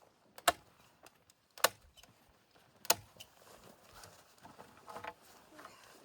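Staple gun firing three times, about a second apart, fastening tent canvas, with lighter clicks and rustling of the canvas between.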